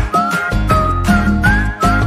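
Upbeat background music with a whistled melody over a steady beat.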